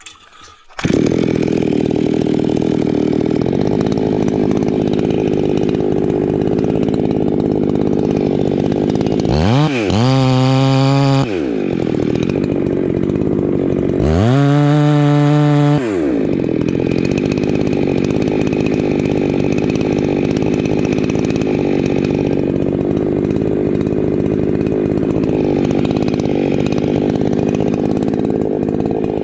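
Ported Husqvarna 390XP two-stroke chainsaw opening up to full throttle about a second in and cutting steadily under load through the base of a large grand fir during felling. Twice, around ten and fifteen seconds in, its pitch rises sharply to a higher, louder rev for a second or two, then falls back to the loaded cutting note.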